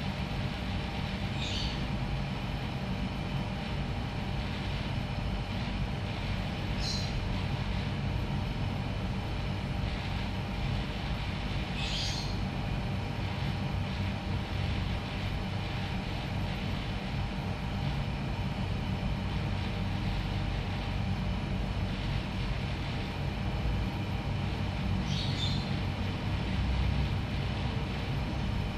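Steady mechanical hum with a low drone and a few fainter steady tones above it, broken by four brief, faint high chirps spread through.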